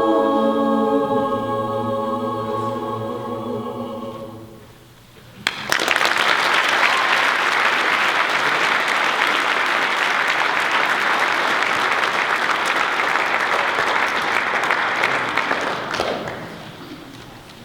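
A madrigal choir holding the final chord of a piece and letting it die away, then, after a moment's hush, an audience applauding for about ten seconds before the clapping fades.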